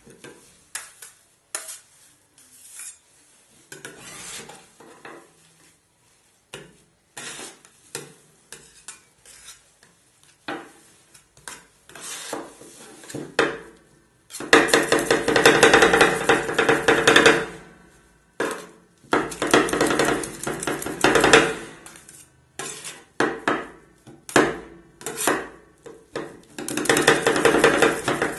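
Two steel scrapers chopping and scraping on the frozen steel pan of a rolled ice cream machine as an Oreo chocolate bar is mashed into the cream base. Sparse clacks and scrapes come first. About halfway in they give way to stretches of rapid chopping with the pan ringing.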